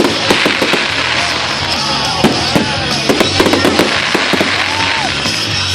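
A fireworks display: rapid, irregular bangs and crackling shell bursts, over music playing throughout.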